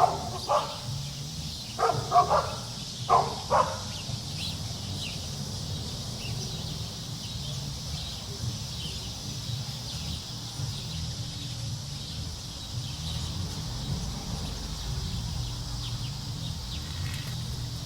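A dog barks in three short bouts over the first few seconds. Then comes steady outdoor ambience: a low rumble, a faint high hiss and scattered faint chirps.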